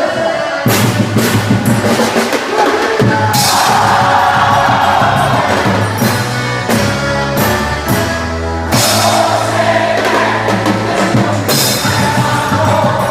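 Loud music with a drum kit beat, bass drum and snare, playing without a break.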